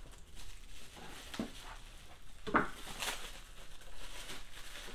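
Clear plastic bag crinkling and rustling as it is handled and pulled open, in irregular crackles, the sharpest about two and a half seconds in.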